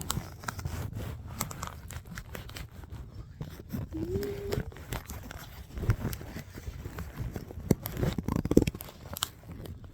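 Rustling, crunching and scraping close to the microphone, with irregular clicks and a few louder knocks in the second half: handling noise as the camera is put into a holder or pocket.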